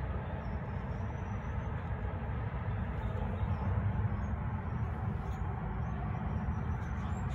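Steady low rumbling background noise with no distinct knocks or tool sounds.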